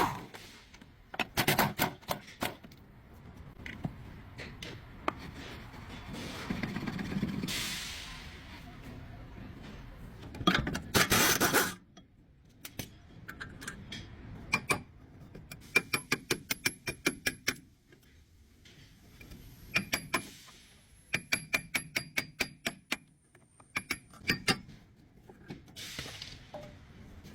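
Hand tools working on a car's rear shock absorber mounts: runs of rapid, ringing metallic clicks, with a few louder clanks and short noisy bursts in between.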